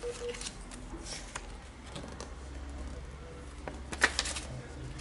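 A folded paper user manual being unfolded by hand: light rustling and crinkling of the paper, with a louder cluster of crackles about four seconds in.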